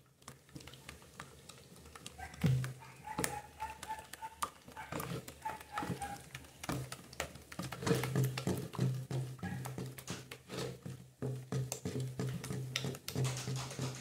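Wooden spoon stirring a thick, pasty homemade caustic-soda detergent in a plastic bucket, with irregular knocks and scrapes against the bucket's sides.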